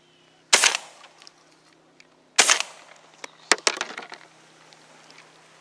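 Shotgun fire at ducks flying overhead: two loud shots about two seconds apart, followed about a second later by a quick run of quieter, sharp cracks.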